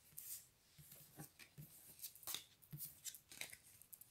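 Near silence in a small room, broken by faint scattered clicks, ticks and soft rustles, about a dozen over the few seconds.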